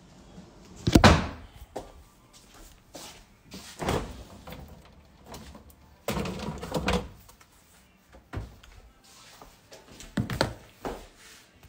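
A series of knocks and thumps from things being handled in a kitchen. The loudest comes about a second in, and further knocks follow about four, six to seven and ten seconds in.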